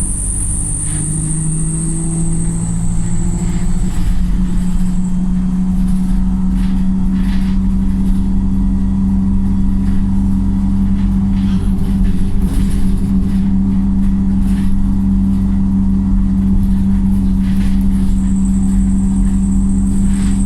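Wright StreetLite single-deck bus engine heard from on board, pulling hard. Its pitch climbs over the first few seconds and then holds steady at high revs. A high whine fades out about five seconds in and comes back near the end, with a few short rattles in between.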